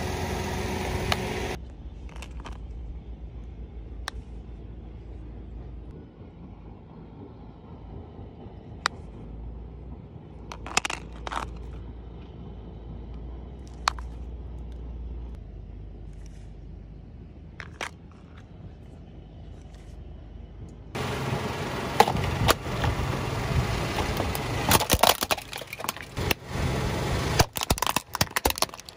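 A car engine idles briefly. Then come a few light clicks and taps as phones are handled. From about two-thirds of the way in, a car tyre rolls over a plastic toy truck and a plastic bottle, crushing them with loud, repeated cracking and crunching.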